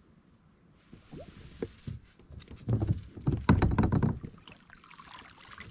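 Hooked largemouth bass splashing at the surface as it is landed into a net beside a kayak, with scattered knocks; the splashing is loudest for about a second and a half in the middle.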